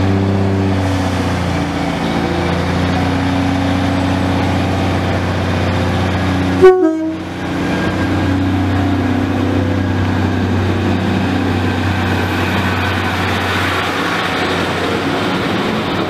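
Class 153 diesel multiple unit running close by, its underfloor Cummins diesel engine giving a steady note, with a brief loud horn toot about seven seconds in. The wheel and engine noise grows fuller as the unit draws alongside near the end.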